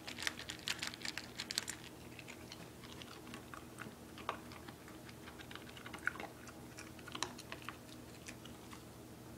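A dog eating dry kibble: a quick run of crunches in the first couple of seconds, then scattered crunches, with another cluster about six to seven and a half seconds in.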